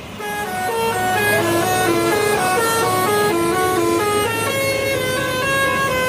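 Bus telolet horn, a set of air-horn trumpets playing a quick tune of stepped notes, several sounding together, starting just after the opening, over a low steady hum.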